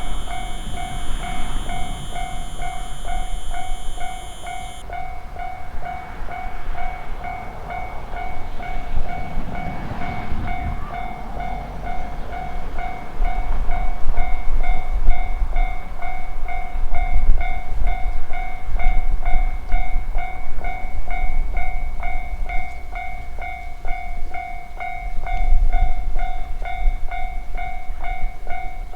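Japanese railroad crossing alarm ringing its rapid, steady 'kan kan' ding while an electric train rumbles through the crossing, loudest around the middle. A steady high whine cuts off about five seconds in.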